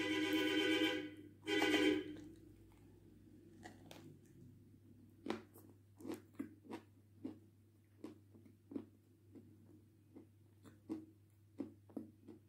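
Pressed white clay coated in red clay being bitten and chewed, with sharp irregular crunches about once or twice a second from about four seconds in. It opens with two loud voiced hums.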